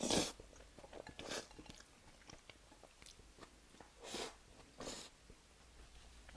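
Close-up eating sounds: bites and crunchy chewing, with the loudest bite right at the start and further crunches about a second in and twice more near four and five seconds, small wet clicks of the mouth between.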